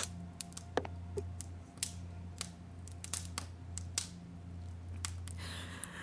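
Rummaging through a handbag: scattered light clicks and rustles as items inside are moved about and handled, over a low steady hum.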